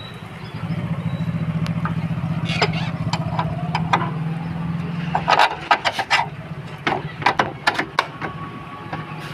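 Metal clicks and clanks of a motorcycle wheel being fitted back onto its axle with hand tools, coming in quick runs, most of them in the second half. Under them is a steady low mechanical hum that grows louder about half a second in and eases off about five seconds in.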